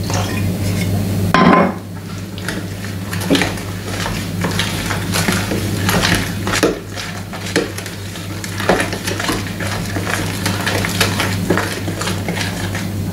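Milk pouring into a plastic mixing bowl for about a second and a half. Then a utensil stirs and scrapes thick cake batter in the bowl, with irregular clicks and knocks against the bowl, over a steady low hum.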